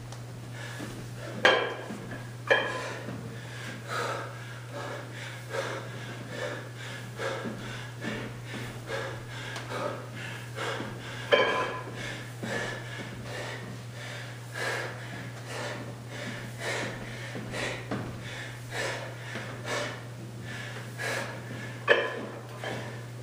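A man breathing hard in a quick, even rhythm while doing kettlebell goblet squats mid-workout, with a few sharp knocks and a steady low hum underneath.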